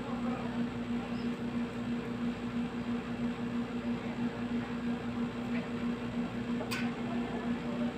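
Split-type air conditioner's outdoor unit running steadily, its compressor giving a low hum over the whir of the fan, while the system is low on refrigerant and being recharged. A single short click near the end.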